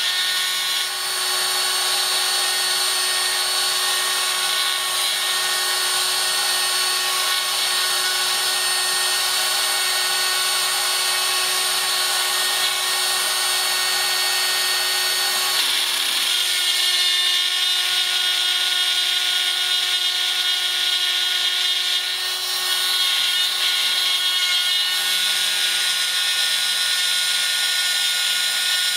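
The Proxxon pantograph engraver's small mains-powered drill runs at high speed with a steady whine, its cutter milling a metal workpiece guided by hand through the pantograph. The whine and cutting noise shift about halfway through and again a few seconds later as the cut moves.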